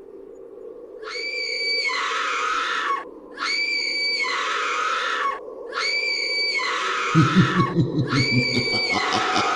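Horror sound effect of a shrill, squealing creature shriek repeated four times, each held at one pitch for about two seconds, over a low drone. About seven seconds in, a low, rapidly pulsing growl joins in.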